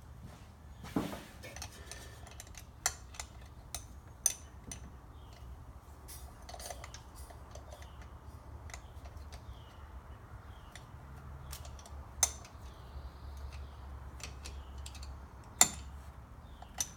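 Hand tools clinking and clicking against metal while working on a small-block Chevy 350's thermostat housing: sharp, isolated clinks a few seconds apart, the loudest near the end, over a steady low hum.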